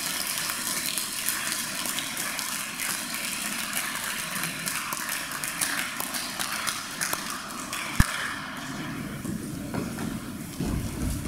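Audience applauding: a steady patter of many hands clapping, with a single sharp knock about eight seconds in.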